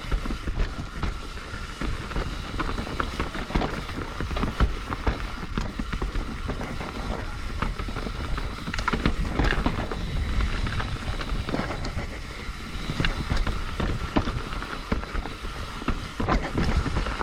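Mountain bike descending a dirt trail: tyres rolling over the ground and the bike rattling and knocking irregularly over rough terrain, with a steady high buzz under it.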